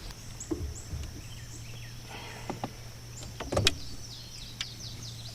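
Steady low hum of a small electric motor, with a few sharp knocks, the loudest about three and a half seconds in.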